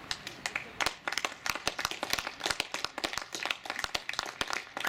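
A small group of people clapping: scattered hand claps that grow denser about a second in.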